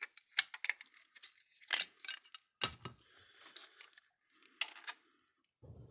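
Scattered sharp clicks and light clatter of small hard parts being handled: the burnt circuit board of an electric fence energizer and its shield being worked loose.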